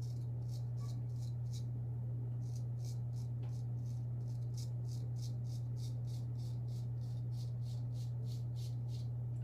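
A Gold Dollar straight razor scraping through thick three-day stubble in quick, short strokes, about three or four a second, each a brief high rasp. A steady low hum runs underneath and is the loudest thing heard.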